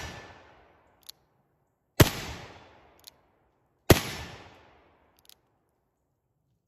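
Uberti-made Cimarron 1861 Navy .36 cap-and-ball revolver firing black-powder shots: the tail of one shot fades away at the start, then two more shots about two seconds apart, each ringing out and dying away over about a second. A short faint click follows about a second after each shot.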